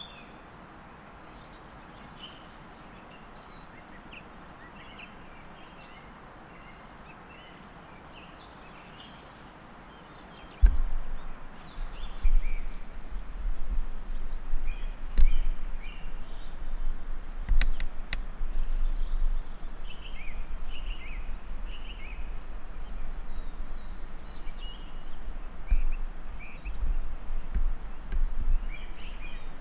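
Small birds chirping over a faint steady outdoor hiss. About ten seconds in, a much louder low rumbling with irregular thumps starts on the microphone and continues.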